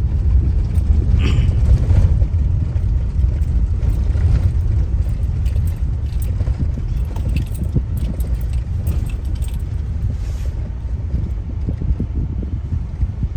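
A car's steady low road rumble heard from inside the cabin, with small rattles and knocks from the car as it rides along.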